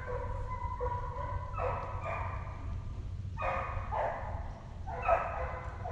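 Deer-hunting hounds baying as they run a trail: a string of long, drawn-out bays, about one a second, at times overlapping.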